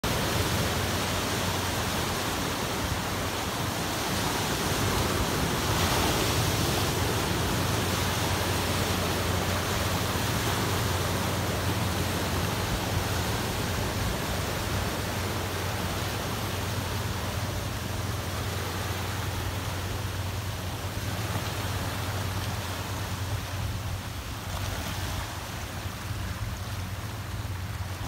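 Small sea waves breaking and washing over a rocky shore, a continuous rushing surf that swells and eases as the waves come in. A low steady hum runs underneath.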